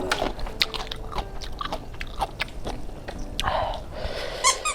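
A person biting and chewing food close to the microphone: a run of short, sharp crunches and clicks.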